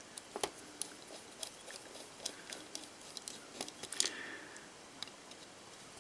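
Scattered small, sharp clicks and light scrapes of a screwdriver working the screws in the plate of a Smiths Ingersoll pin-pallet pocket watch movement, taken out to free the mainspring barrel. The clearest clicks come about half a second in and again about four seconds in.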